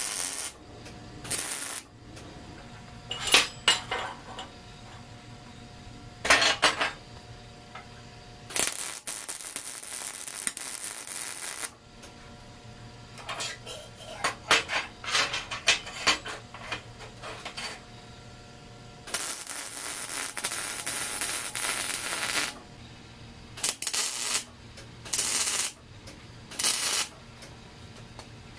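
MIG welding on steel square tubing: a crackling hiss that starts and stops in a string of short tack welds under a second each, with two longer beads of about three seconds, near the middle and about two-thirds of the way through.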